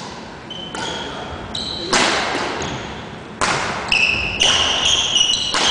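Badminton rally: sharp racket hits on the shuttlecock, several in a row, with court shoes squeaking on the wooden gym floor, mostly in the second half.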